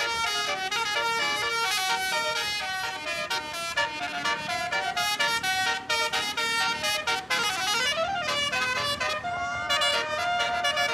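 Indonesian bus basuri musical horn playing a quick tune of changing notes. About seven seconds in it slides down in pitch and back up, then holds longer notes near the end.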